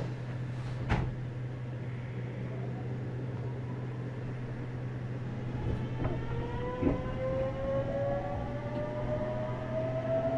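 Meitetsu 100 series electric train with Mitsubishi GTO-VVVF traction control starting off: a steady low hum, then about six seconds in the inverter begins a rising whine as the train accelerates. There is a knock about a second in and a thump about seven seconds in.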